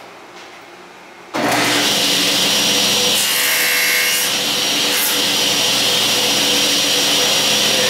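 Table saw with an 80-tooth non-ferrous carbide blade starting abruptly about a second and a half in and running steadily. About three seconds in, the blade cuts through quarter-inch aluminum bar stock for roughly a second, changing the tone of the noise.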